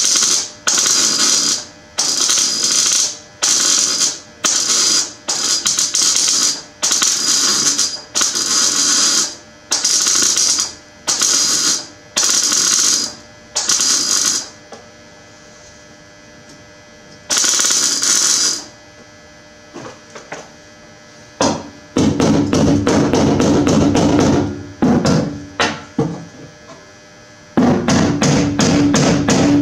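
MIG welder stitch-welding the body sheet steel of a Toyota Land Cruiser HZJ in short crackling bursts, about one a second, with a longer pause near the middle. From about two-thirds of the way through, a different, denser sound with a steady low hum takes over.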